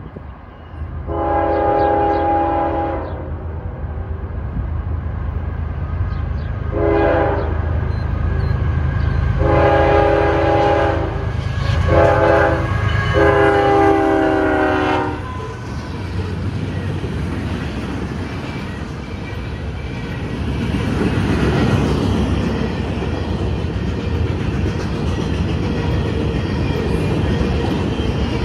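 A CSX diesel locomotive's multi-tone horn sounds a long blast, a short toot, then long, short, long as it reaches a grade crossing. After that comes the steady rumble and rail clatter of a freight train passing close by.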